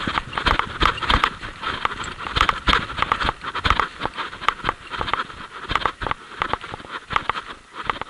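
Hurried footsteps crunching and swishing through dry meadow grass, with rustling stalks and clothing; the steps stop near the end.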